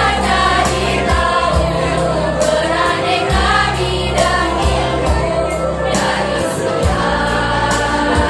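Choir of young women singing together over backing music with a bass line and a steady beat.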